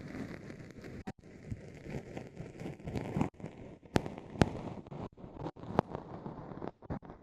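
Ear-pick scraping and crackling deep in an ear canal, very close to the microphone, broken by a few sharp clicks, the loudest around four seconds in.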